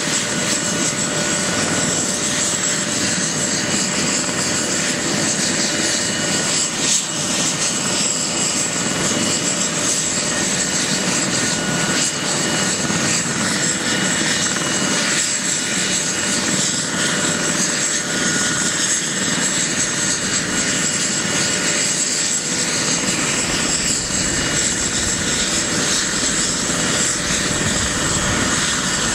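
Eurocopter EC155B helicopter's twin turboshaft engines running steadily at idle on the ground: a steady turbine whine with several high tones over a dense rush of engine and rotor noise.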